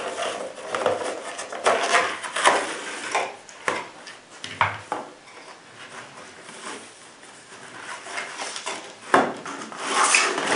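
A holster being taken out of its packaging by hand: irregular rustling and light clattering clicks of plastic and packing, quieter in the middle and busier again near the end.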